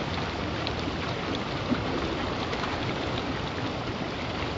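River rapids rushing steadily over rocks and around a person sitting in the current, with one brief click about a second and a half in.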